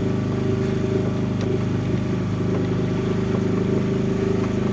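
Motorboat engine running at a steady speed, a constant low drone.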